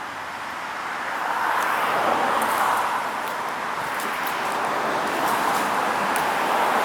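Road traffic going by: a steady rushing of tyres and engines that swells about a second in and then holds.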